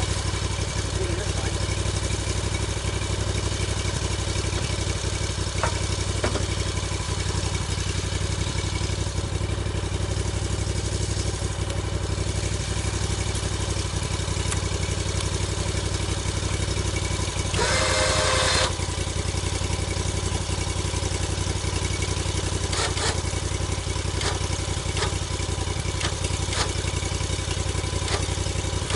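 Sawmill engine running steadily through a log-milling cut, with a louder rushing burst about a second long a little past halfway and a few light clicks after it.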